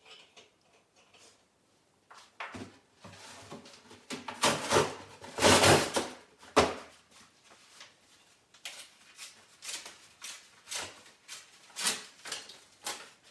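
Kitchen handling noises as marinated meat is threaded onto bamboo skewers over a bowl. A burst of rustling and scraping comes in the middle, loudest about halfway through. After it come short clicks and taps every half second or so, as the skewers and meat knock against the bowl.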